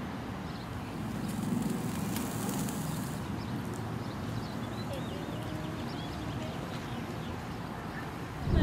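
Steady low outdoor background rumble with faint bird chirps in the middle.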